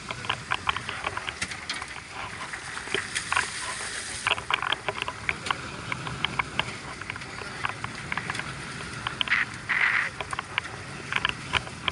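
Sea water washing and splashing against a fishing boat's hull, with many irregular sharp clicks and knocks. There is a brighter hiss about four seconds in and a short louder hissing burst near the end.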